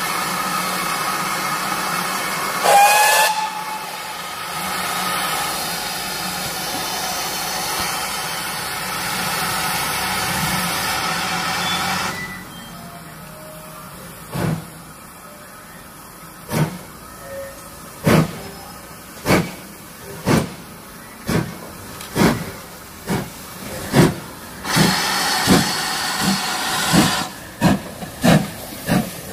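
Steam locomotive hissing steadily, with a brief whistle about three seconds in. The hiss stops about twelve seconds in, then slow exhaust beats start and quicken as the engine gets under way, with a further burst of hiss among them.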